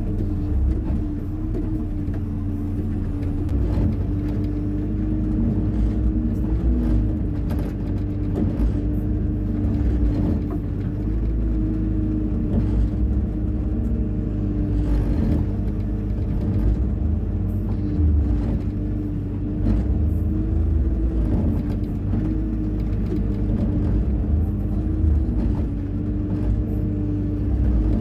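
Hyundai 140 wheeled excavator's diesel engine running steadily at a constant pitch with a low rumble, and a few faint knocks.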